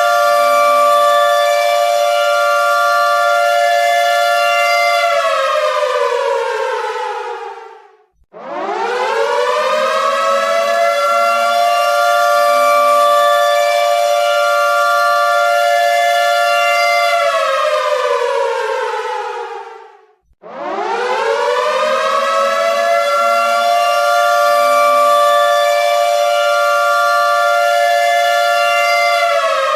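Air raid siren wailing in repeated cycles: a chord of two close tones holds steady for about eight seconds, falls in pitch over about three seconds, then winds back up and holds again.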